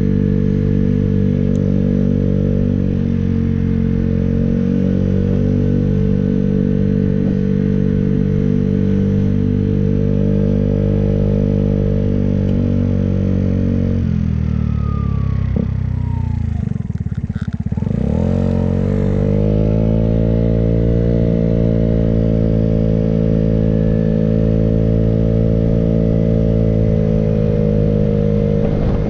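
Motorcycle engine running steadily under way; about halfway through its note drops as it slows, then rises again as it accelerates away and settles to a steady run.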